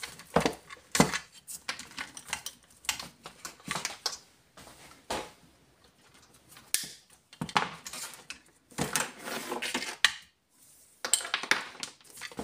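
Small metal parts clinking and clattering as someone rummages through a box or drawer of bits, in short irregular bursts.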